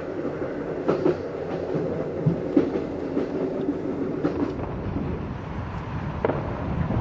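Passenger train running, heard from inside the carriage: a steady rumble with a few sharp clicks from the wheels.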